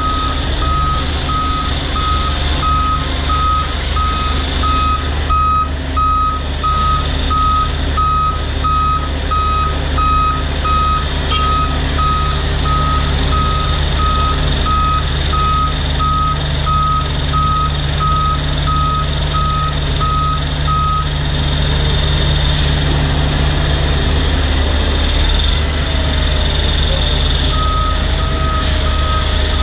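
Tractor-trailer's reversing alarm beeping steadily about twice a second as the truck backs up, stopping about two-thirds of the way through and starting again near the end, over a steady low engine rumble.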